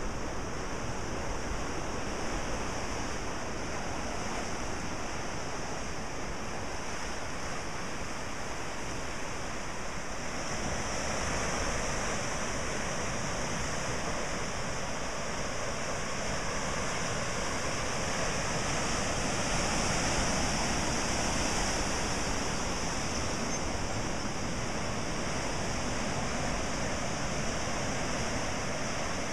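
Ocean surf breaking and washing over rocks below a cliff, a steady rushing that swells louder for several seconds in the middle.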